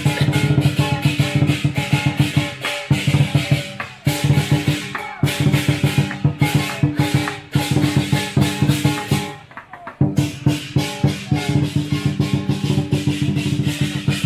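Lion dance percussion: a Chinese lion drum beaten in fast, dense strokes with clashing cymbals ringing over it, pausing briefly twice.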